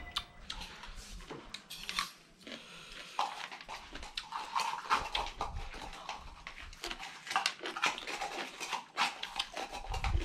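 Close-up eating noises: wet chewing, lip-smacking and slurping as noodles and salad are eaten with the fingers, a steady patter of many short irregular smacks and clicks.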